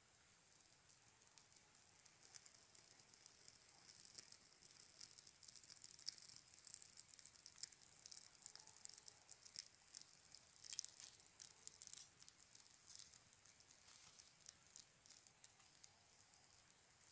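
Small kindling fire catching: faint, quick crackling and snapping of burning twigs, busiest in the middle and thinning out near the end.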